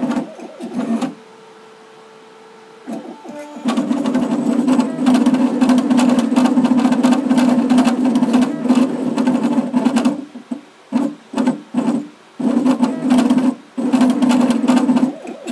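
Diamond-tip engraving machine at work on a pewter tankard, its drive buzzing as the tip traces the design. After a quieter steady hum early on, it runs continuously for several seconds, then goes in short stop-start bursts.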